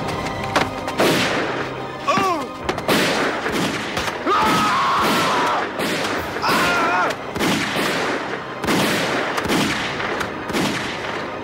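Pistol gunfire, many shots in quick irregular volleys, with wavering yells between them.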